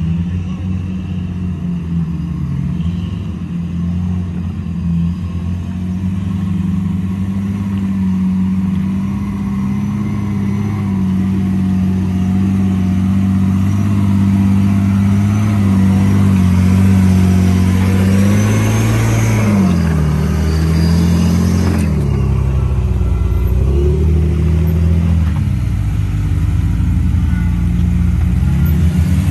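Off-road Jeep engine running, held steady at first and then dipping and rising in pitch several times in the second half as the throttle comes on and off.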